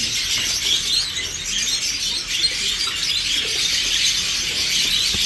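Many small caged birds chirping and twittering at once, a dense, steady high-pitched chatter.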